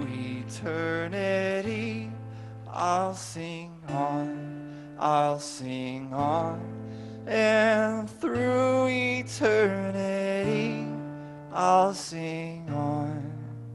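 A man singing with his own acoustic guitar, holding long wavering notes over strummed chords. After the last sung phrase near the end, the final guitar chord rings on and fades out.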